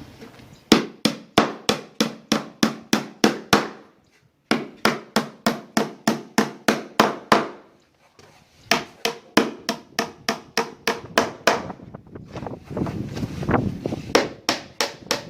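Hammer striking wood in fast, even runs of about a dozen blows at roughly four a second, with short pauses between the runs. For a couple of seconds near the end the blows turn duller and heavier before the sharp strikes return.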